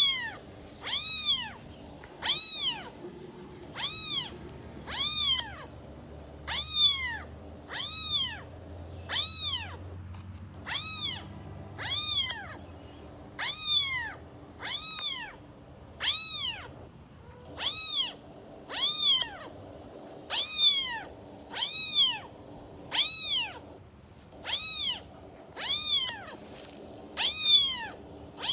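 A cat meowing over and over at a steady pace of about one meow a second. Each meow is short and high-pitched, rising and then falling in pitch.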